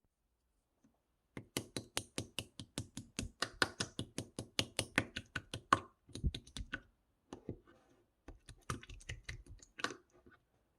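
Slime being squeezed and pressed by hand, giving a rapid run of sharp clicking pops at about five a second. After about six seconds these break into sparser, irregular clusters of clicks.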